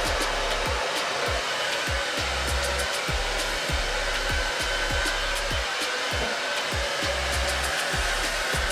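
Hair dryer blowing steadily, with a faint thin whine above the rush of air.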